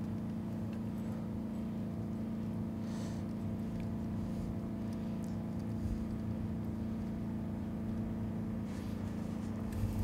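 A motor running steadily in the background: a low hum at a fixed pitch that does not change.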